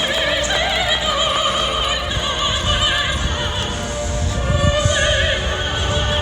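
Music with an operatic singing voice, its pitch wavering in heavy vibrato, and a low rumble underneath from about two seconds in.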